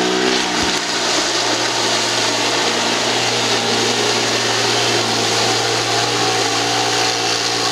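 ATV engine held at a high, steady rev as the quad bogs down in deep mud, its wheels spinning without getting out.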